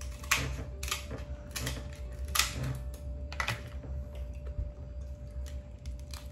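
A cooked king crab leg's shell being cut with kitchen shears and cracked apart by hand: a string of sharp cracks and snaps, about one a second at first, then fewer and smaller.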